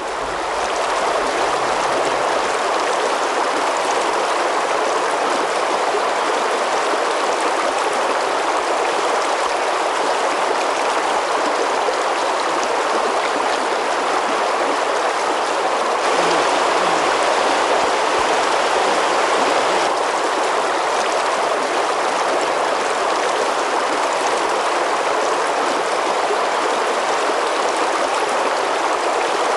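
Shallow river rushing steadily over a stony riffle, a continuous even wash of moving water.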